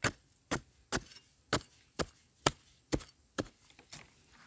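A metal digging blade chopping into dry soil around wild yam tubers: nine sharp, evenly spaced strikes at about two a second.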